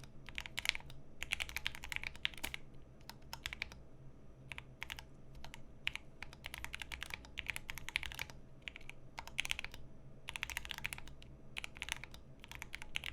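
Typing at speed on a Bepovan mechanical keyboard with lubed Lil Tyke switches, PBT keycaps and a half plate: quick runs of keystrokes broken by short pauses.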